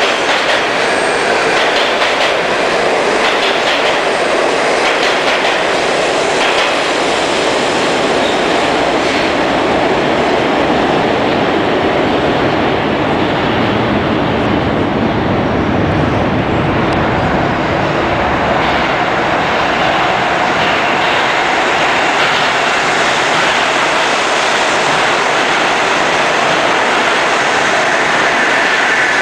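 New York City subway train running past a station platform: a loud, steady rumble of steel wheels on the rails that does not let up.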